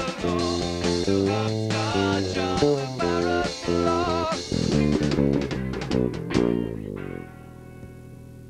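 A rock band playing live, with electric guitar and bass, recorded in a small cellar. The song closes with a final chord about seven seconds in, leaving a steady electrical hum from the amplifiers.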